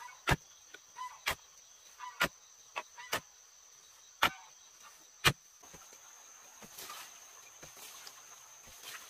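A series of sharp knocks, seven of them about a second apart over the first five seconds or so, then only faint taps, over a steady high-pitched drone.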